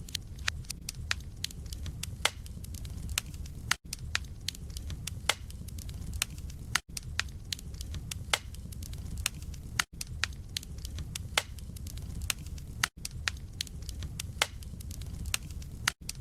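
Wood fire burning in a fireplace: burning logs crackle and pop in quick, irregular sharp clicks over a steady low rumble. The sound drops out for a split second about every three seconds.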